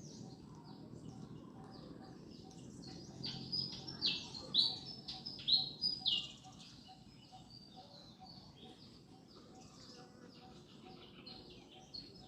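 Birds chirping: many short, high calls that drop in pitch, coming thick and loud for a few seconds before thinning out to scattered, fainter chirps.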